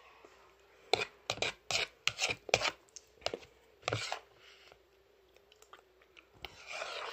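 Metal spoon scraping and scooping through Fruche grape dessert: a quick run of about six short scrapes a second or so in, two more near the middle, and a longer rasp near the end. A faint steady hum runs underneath.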